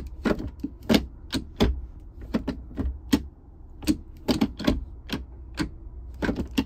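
Ford Bronco's automatic gear shift lever being wiggled back and forth in gear: an irregular run of sharp plastic clicks and clacks, about three a second. The loose play is what the owner calls a cheap, flimsy, clunky-feeling shifter.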